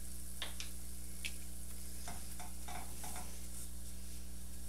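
Silicone spatula stirring a butter-and-flour roux in a stainless steel saucepan: scattered soft scrapes against the pan over a steady faint hiss.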